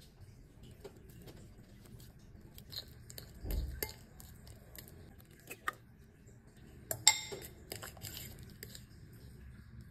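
Metal fork mashing ripe bananas in a ceramic bowl: soft squelching with irregular clicks and scrapes of the tines against the bowl. A louder sharp knock and clatter comes about seven seconds in.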